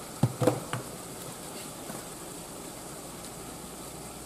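Three or four quick knocks about half a second in as spice shaker bottles are handled over a stovetop pan, then a steady faint hiss.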